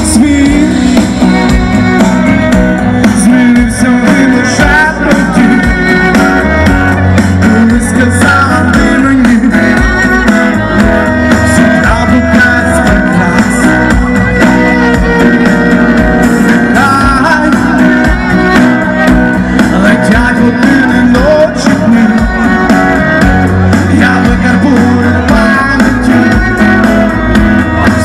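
Live band music with guitars and bass and a singing voice over them.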